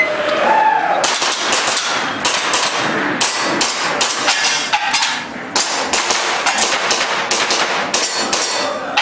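Airsoft pistol firing rapid strings of shots, several a second, starting about a second in, with a brief pause a little past the middle.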